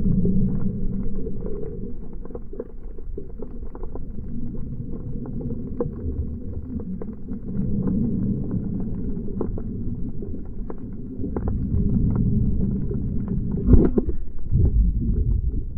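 Muffled low rumble of water and movement picked up through a camera's waterproof housing, with many faint scattered clicks and a louder knock near the end.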